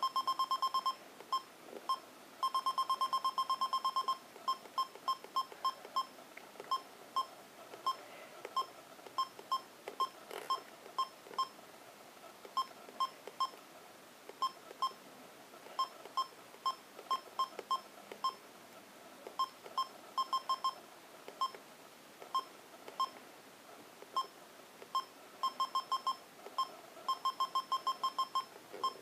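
Sony Mavica MVC-FD90 digital camera beeping as its menu buttons are pressed: short high beeps, one per press, in irregular clusters. Quick runs of beeps come around three seconds in and again near the end.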